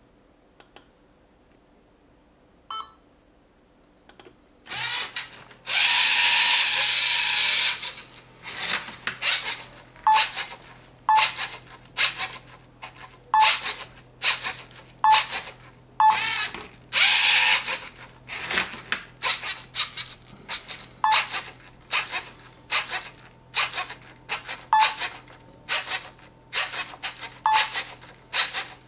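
Lego Mindstorms NXT servo motors and gears of a SCARA plotter arm whirring in short repeated bursts, about one a second, as the arm steps a pen across paper. There are two longer runs of a few seconds each, over a steady low hum. The first few seconds are nearly quiet.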